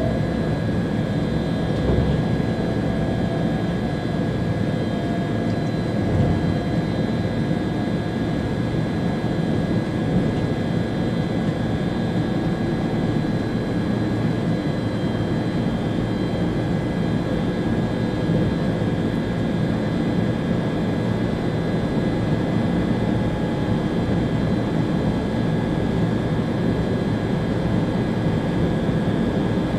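ÖBB Railjet high-speed train running steadily at speed, heard inside the driver's cab: a continuous low rumble of wheels on track with a faint steady high whine over it and a couple of light knocks about two and six seconds in.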